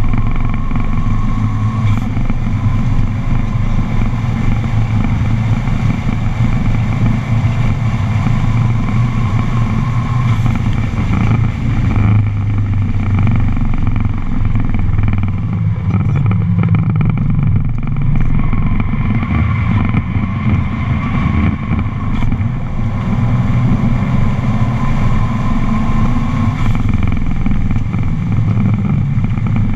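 A Subaru's engine heard from inside the cabin at track speed, under load, its pitch rising and falling as it accelerates and eases off, with a few brief lifts near the middle. Wind and road noise run steadily underneath.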